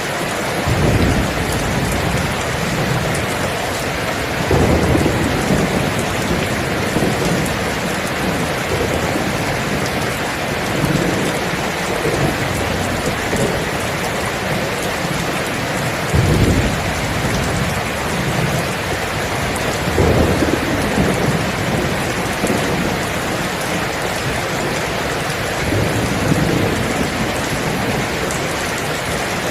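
Steady heavy rain with rolls of thunder rumbling in and out, the strongest about a second, four and a half, sixteen and twenty seconds in.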